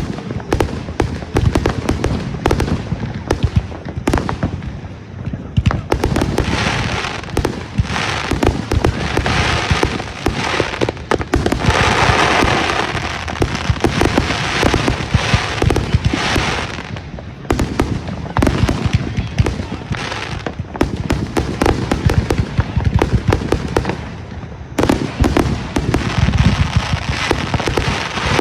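Consumer fireworks going off in rapid succession: a dense run of bangs and pops, with a stretch of steady hissing between about six and seventeen seconds in.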